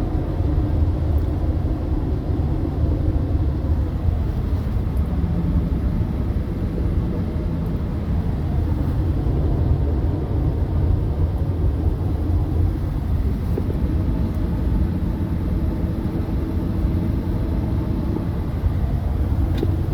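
Steady road and engine noise from inside a moving vehicle's cabin at highway speed: an even low rumble that holds constant throughout.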